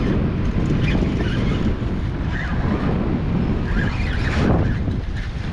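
Wind buffeting the microphone: a steady low rumble, with a brief hiss about four and a half seconds in.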